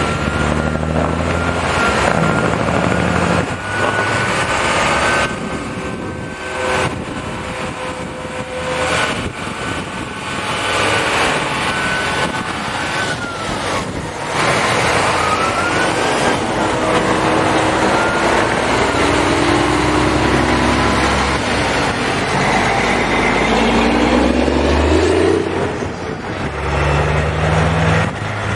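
Heavy trucks driving past, their diesel engines running and speeding up several times in the second half. A thin high whine holds steady for about the first half, then glides up and down.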